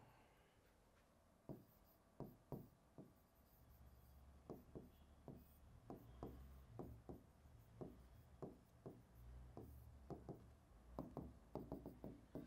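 Faint, irregular tapping and ticking of a stylus on an interactive display screen during handwriting, starting about a second and a half in, over a faint low hum.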